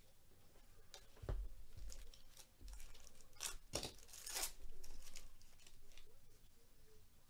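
A trading card pack wrapper being torn open and crinkled in gloved hands, in a few short rustling bursts, the loudest about halfway through.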